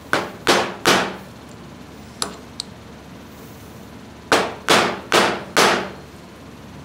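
Wooden mallet striking a metal seal driver, driving a new upper seal into a Ford 3000 tractor's power steering column housing: three quick blows, a lighter tap, then a run of four more blows.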